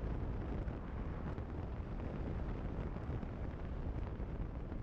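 Steady low wind rumble on the microphone over an adventure motorcycle's engine and tyre noise while riding at road speed.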